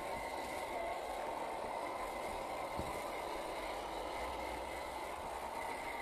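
A 1/10-scale RC crawler truck's 550-size electric motor and gears whining steadily as it drives through grass, with one short knock about three seconds in.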